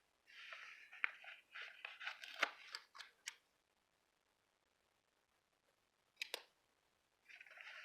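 Paper and sticker sheets rustling and crinkling as they are handled, with several sharp clicks. A pause of near silence follows, then two quick clicks, and the rustling starts again near the end.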